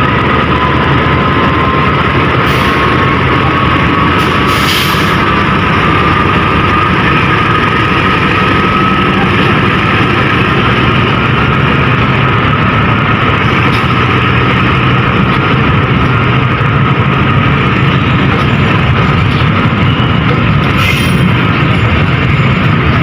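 Argo Parahyangan passenger train pulling out of the station. The locomotive is running and the carriages are rolling, with a steady whine that rises slowly in pitch. A few short clanks come through, near the start and again near the end.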